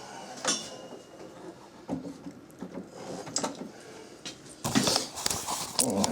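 Handling noises: a series of clicks, knocks and rustles as the machine is set up to be switched on. They are busiest and loudest about five seconds in.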